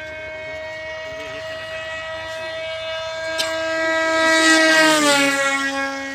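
Electric RC model airplane's brushless motor and propeller whining at a steady high pitch in flight. It grows louder as the plane passes low, then drops in pitch about five seconds in as it goes by.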